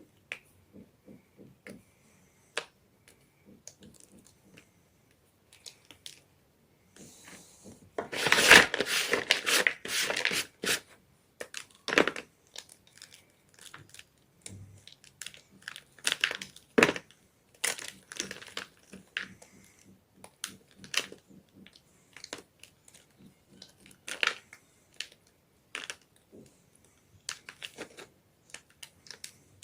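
Gym chalk being crushed and crumbled: scattered sharp crunches and crackles, with a louder spell of dense crumbling about a third of the way in.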